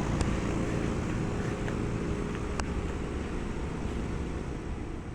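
American Standard Allegiance 16 outdoor air-conditioner units running: a steady fan whoosh over a low compressor hum.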